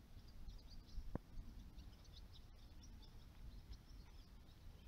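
Faint, irregular chirping of small birds over a low steady rumble, with a single click about a second in.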